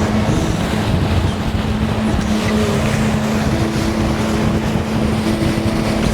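Motorboat engine running steadily underway, with wind noise on the microphone.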